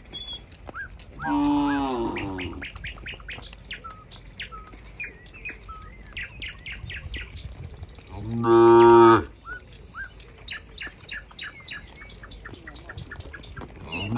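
Cows mooing twice, one call about a second in and another about eight seconds in, each lasting about a second. Small birds chirp repeatedly in between.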